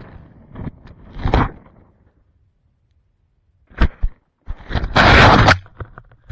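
Camera handling noise: irregular knocks and rubbing on the microphone, a pause, two sharp knocks, then a loud rustling scrape about five seconds in as the camera is moved.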